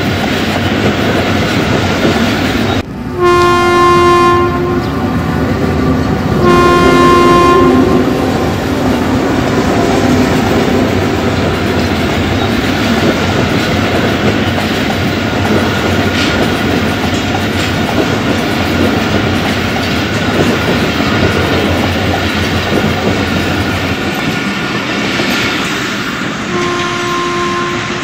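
Diesel-hauled passenger train running past close by, with a steady rumble and clatter of wheels over the rails. The locomotive horn sounds two blasts of about a second and a half each a few seconds in, then sounds again near the end.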